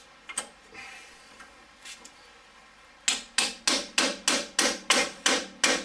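Impact wrench hammering on a drive shaft bolt through a long run of socket extensions: a few light clicks, then about three seconds in a steady series of about ten sharp impacts, roughly three a second.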